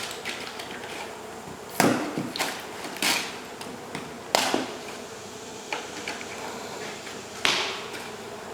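Honey bees buzzing steadily around an opened wall hive, with about six sharp knocks and clatters from work at the comb scattered through it.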